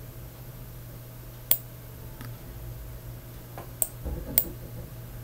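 Three sharp computer-mouse clicks, spaced unevenly, over a low steady hum.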